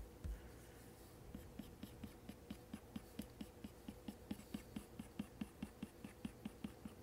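Apple Pencil tip scratching on an iPad Pro's matte screen protector in quick, short, faint strokes, about five a second, starting about a second in. These are individual hair strokes being drawn.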